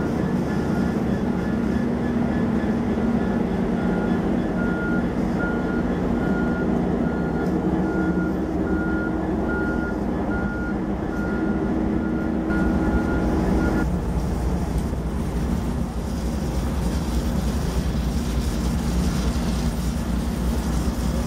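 Diesel locomotive of a Metrolink commuter train running steadily at close range, a dense low rumble. A repeated high beep, about one and a half a second, sounds over it from about four seconds in and stops at about fourteen seconds, together with a steady hum.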